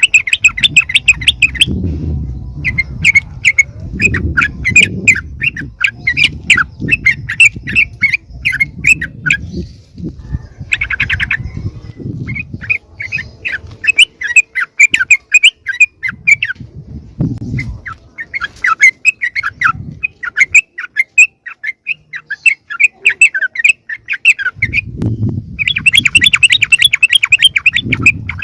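Yellow-vented bulbuls (trucukan) chattering noisily in long runs of rapid harsh call notes, with a few short breaks: the busy, agitated calling used as a lure to bring other bulbuls close. Loud low thuds and rumbling run underneath the calls.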